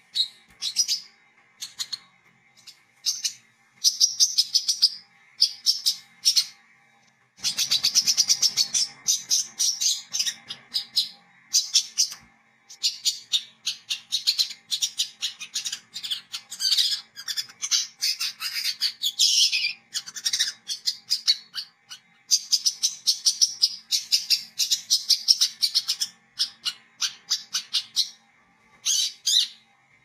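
Male brown-throated sunbird (kolibri kelapa, 'wiceh') singing: rapid high-pitched twittering chirps in bursts, broken by short pauses, with several longer runs of continuous chattering song. A faint steady hum lies underneath.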